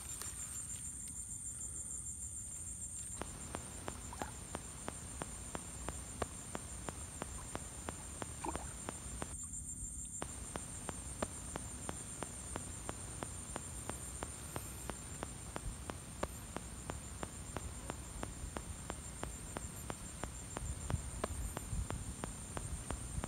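Crickets trilling in a steady, high-pitched night chorus, with faint ticks and clicks throughout.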